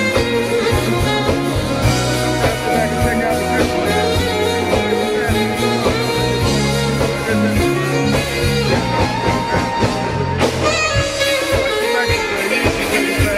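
Live band music: electric guitars and bass over drums and congas, with horns, played through a stage sound system. A steady bass line and beat carry on, with a brief break in the high end about ten seconds in.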